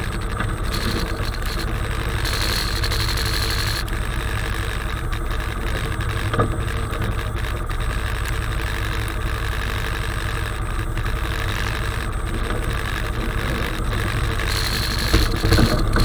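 Honda 420 ATV's single-cylinder engine running steadily without revving, with one short knock about six seconds in.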